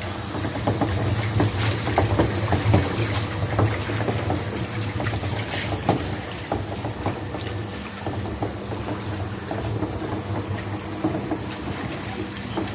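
Water spraying and splashing against an HVAC condenser coil during cleaning, over a steady machine hum.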